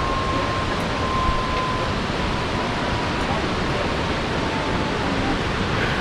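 Waterfall roaring steadily as an even rush of water. A faint thin whine slowly falls in pitch over it and fades out about five seconds in.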